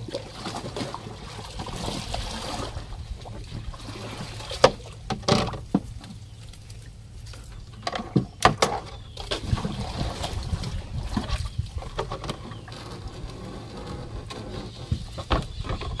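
A small boat being paddled: the paddle sloshing and dripping water, with a few sharp knocks scattered through it, clustered about five and eight seconds in.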